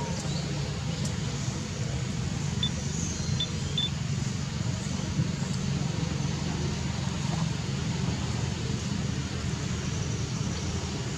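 Steady low outdoor rumble of background noise, with three short high chirps about two and a half to four seconds in.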